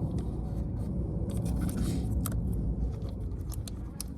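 Small metal clicks and a brief scrape about a second in, as a loosened 10 mm ignition-coil hold-down bolt is unscrewed by hand on a Chrysler V6, over a steady low rumble.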